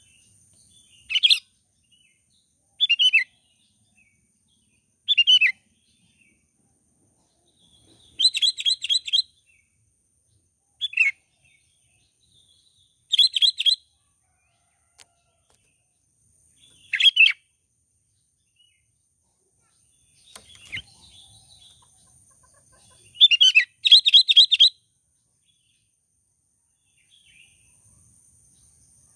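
Sooty-headed bulbul calling: short, bright phrases every two to four seconds, some a single quick note and some a fast run of repeated notes, about eight in all, with two calls close together near the end.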